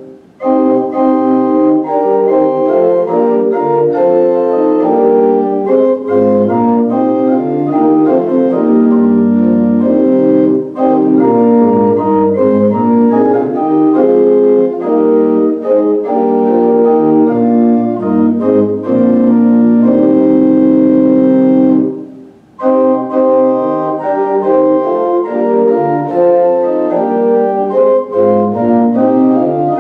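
Organ playing a hymn tune in held chords, with a brief break about two-thirds of the way through before it goes on.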